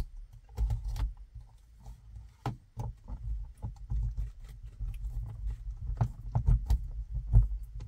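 Torx T20 screwdriver turning out the set screw of a car's rear-view mirror mount: scattered small clicks and scrapes, irregular, over a low rumble of handling noise.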